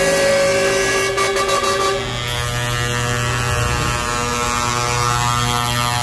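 Trucks driving past sounding their air horns: long held horn tones over engine rumble, changing to a lower set of tones about two seconds in.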